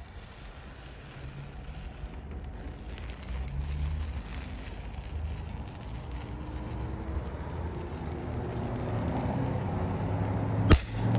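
Fire burning on an electrified cable converter's circuit board, a steady low noise. Near the end, one sharp loud pop as a capacitor on the board bursts.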